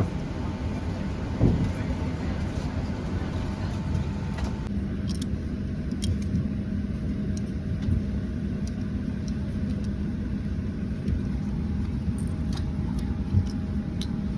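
Steady low mechanical hum of airliner and boarding-area ambience, with a few light clicks and knocks.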